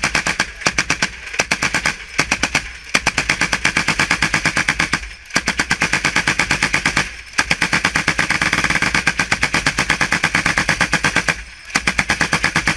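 Machine gun firing long automatic bursts, the shots coming rapidly and evenly, with a few short pauses between bursts.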